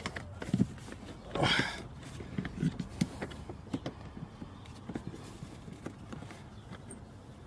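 Hands tucking speaker wiring into the plastic dash opening: irregular light clicks and knocks of the wires and trim, with one louder short scraping rustle about a second and a half in.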